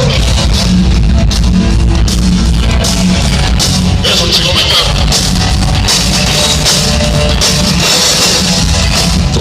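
Loud band music with a steady beat from drum kit and guitar, an instrumental passage with no singing.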